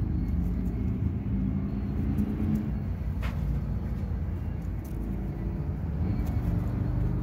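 Steady low background rumble with a faint hum, like a motor or road traffic.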